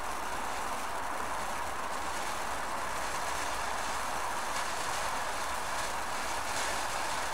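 Old 1989 firework fountain burning, a steady rushing hiss as it sprays glittering sparks, with a few faint crackles in the second half.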